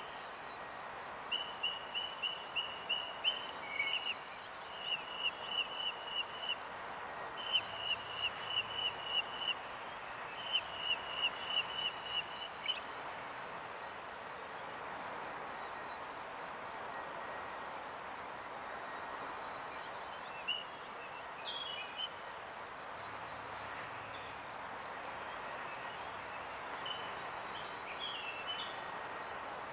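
A steady, high, pulsing insect-like trill, like crickets. Over the first twelve seconds it is joined by a string of short groups of quick chirps, then only a few scattered chirps.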